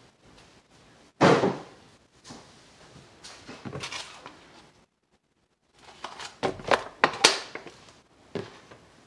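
Kitchen clatter: a sharp bang about a second in, some lighter shuffling, then a quick run of knocks and clatters around six to seven seconds in, like cupboard doors, drawers and dishes being handled.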